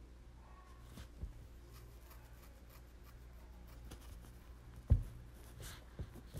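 Quiet room tone with a steady low hum and a few short clicks and knocks, the sharpest about five seconds in.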